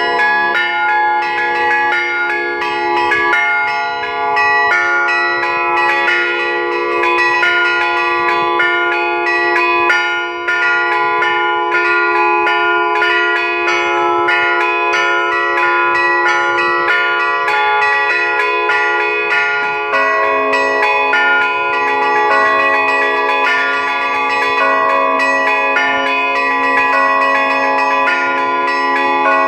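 A set of Russian Orthodox church bells cast by the LITEX foundry, rung as a peal: the small bells are struck in a quick, dense rhythm over the sustained ringing of the larger bells. About twenty seconds in, a lower bell starts to sound.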